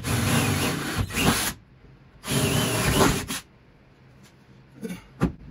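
A DeWalt cordless drill boring through the car's steel floor pan in two bursts of about a second each, enlarging a roll-bar mounting hole in stages toward 3/8 inch. A couple of short knocks follow near the end.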